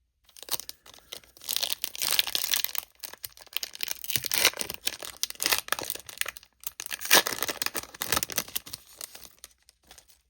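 Foil trading-card pack wrapper being torn open and crinkled by hand, a dense irregular crackle with louder rips throughout.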